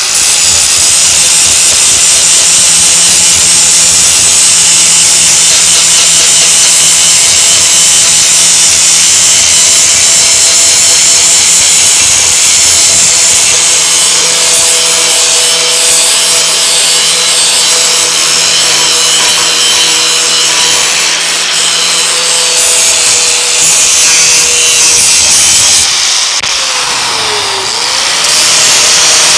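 Electric angle grinder running steadily with its disc pressed against steel, grinding the aluminized coating off an exhaust-pipe stake pocket so it will weld cleanly. Near the end its pitch briefly drops and comes back up.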